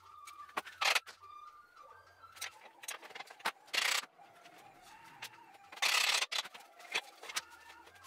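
Workshop clatter of hand tools and metal parts at a motorcycle's rear wheel: scattered clicks and knocks, with three louder rasping noises of about half a second each.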